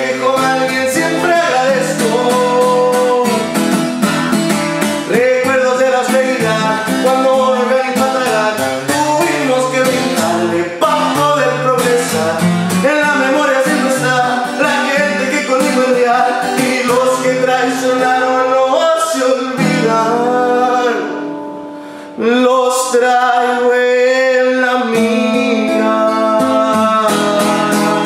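A man singing a ballad to his own acoustic guitar, strummed and picked. About twenty seconds in the sound fades out briefly, then the guitar comes straight back in.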